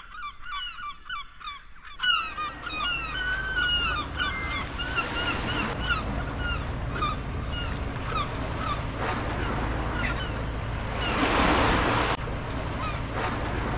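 Many short bird calls in a rapid chatter, dense at first and thinning out after a few seconds. Under them is the low wash of small waves and wind on the shore, and a louder wave breaks about eleven seconds in.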